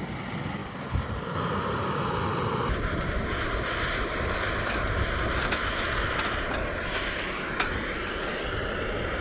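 Canister gas camping stove burning steadily under a pot of water, with wind rumbling on the microphone. A single sharp click comes about three-quarters of the way through.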